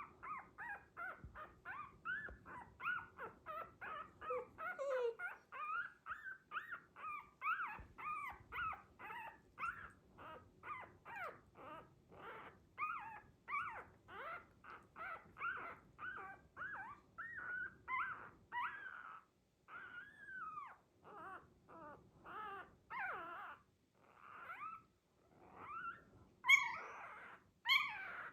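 Dachshund puppy whimpering and whining in a long run of short, high cries, about two or three a second, getting louder near the end.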